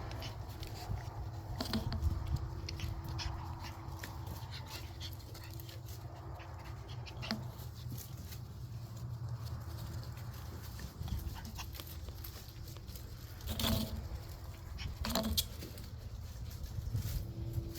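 Shiba Inu puppies playing: scattered clicks and scuffles, with short puppy vocalizations. Two louder sounds come about two thirds of the way through.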